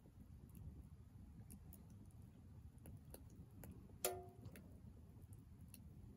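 Firewood crackling as it burns in a small wood stove: scattered faint clicks and one louder pop about four seconds in, which rings briefly.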